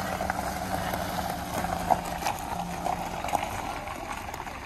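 A car's engine running with a steady low hum that stops about three seconds in, over a crackling crunch of gravel on the drive.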